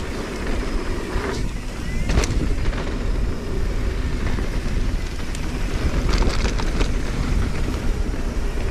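Wind noise on the microphone and mountain bike tyres rolling over a dirt trail, with scattered sharp clicks and rattles from the bike and several together about six seconds in.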